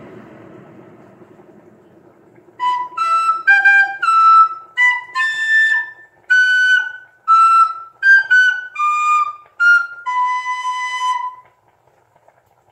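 A flute-like wind instrument plays a short melody of about fifteen notes, the last one held longer, starting a few seconds in and stopping shortly before the end. A hiss fades away over the first two seconds.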